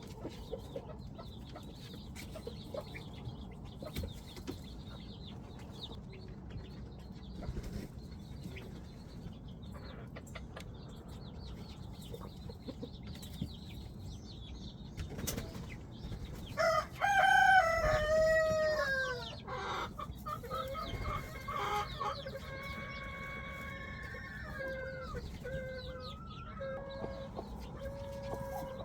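Animal calls: faint short calls scattered through, then a loud drawn-out call with falling pitch about two-thirds of the way in, followed by several shorter held calls.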